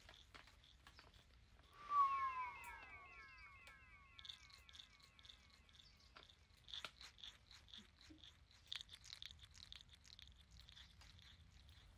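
Faint wetland field ambience: a regular high chirping a few times a second runs throughout. About two seconds in there is a louder falling call, then a run of quick repeated slurred notes for a few seconds. Scattered light clicks and a low wind rumble sit underneath.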